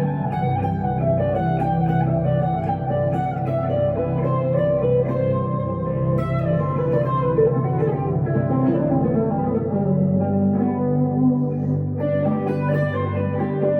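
Electric guitar, a 1962 Gibson Les Paul Custom through a Two Rock Emerald Pro amp, playing a run of single picked notes over low notes held for several seconds.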